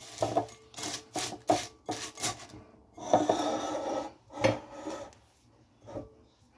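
Plastic spatula scraping chocolate-coated cornflakes around a glass bowl: a run of quick rasping strokes, then a longer scrape about three seconds in and one more near four and a half seconds.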